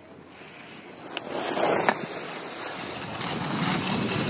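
Skis hissing and scraping over packed snow at speed, with wind rushing over the microphone. There is a sharp edge scrape about one and a half seconds in, and the rush grows louder toward the end.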